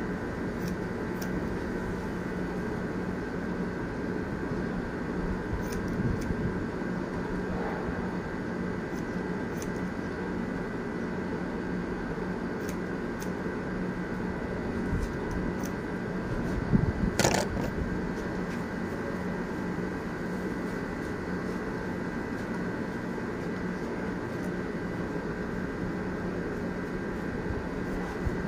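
A steady mechanical hum with a few fixed tones, like a fan or air conditioner running, under occasional light snips of barber's scissors cutting hair. One sharper click and clatter stands out about two-thirds of the way through.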